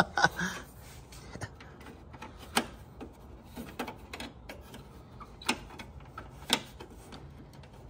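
Hard plastic toy parts of a vintage 1980s G.I. Joe playset clicking and tapping as they are pressed and handled, in scattered, uneven clicks with a few sharper ones.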